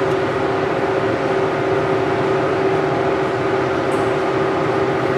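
Steady machine drone with a constant mid-pitched hum, unchanging throughout.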